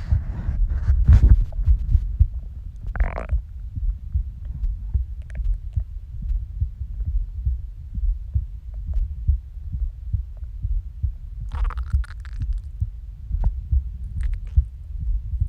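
A heartbeat picked up close against the body pulses steadily. Gurgling stomach growls rise over it a few times: near the start, strongest about three seconds in, and again past the middle.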